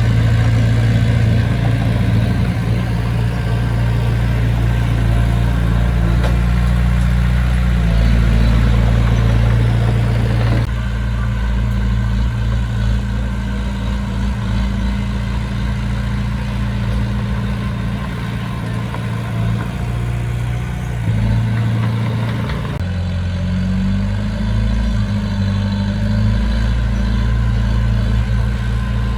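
Diesel engine of heavy construction machinery running steadily with a low hum, its sound changing abruptly about 11 seconds in and again about 23 seconds in.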